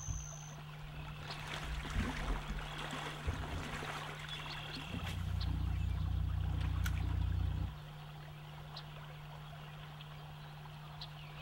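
Small trout stream flowing and trickling, under a steady low hum, with a louder low rumble for about three seconds in the middle.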